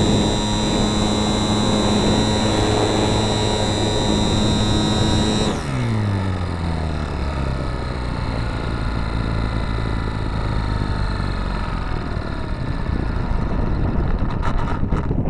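Supercub radio-controlled model plane's motor and propeller running at a steady high whine, then throttled back about five and a half seconds in, the pitch falling quickly. Wind rush and a low hum follow, with a few sharp clicks near the end.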